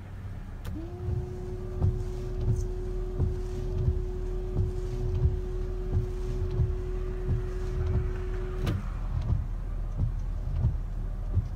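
Car windscreen wipers running: a steady electric motor whine that starts under a second in and cuts off near the end, over regular soft knocks as the blades sweep and reverse. The blades, just polished flat with toothpaste, make none of the squeaking and chattering they made before, a sign that the uneven rubber edge is now smooth.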